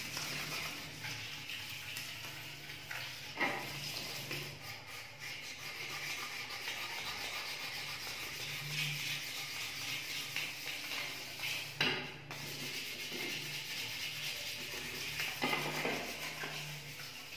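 Hand rubbing and polishing a metal motorcycle mudguard with a cloth: a steady scrubbing swish on the metal, with a few sharper knocks as the mudguard is shifted and handled, about three and a half, twelve and fifteen seconds in.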